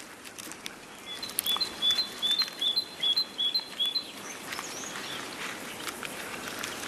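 A songbird singing a quick run of repeated two-note chirps for about three seconds, then a few scattered higher calls, over a faint outdoor hiss.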